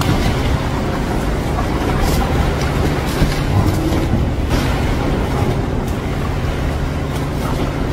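Water splashing as a baby elephant steps and shifts about in a shallow inflatable wading pool, in short scattered splashes over a steady low rumble.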